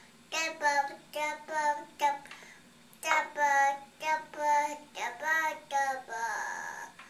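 A toddler singing wordlessly in a run of short, pitched syllables, pausing briefly about two seconds in.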